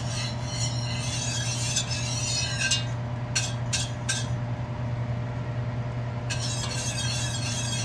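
Wire whisk stirring sugar syrup in a stainless steel pot, swishing and clinking against the metal in a few separate short strokes, over a steady low hum.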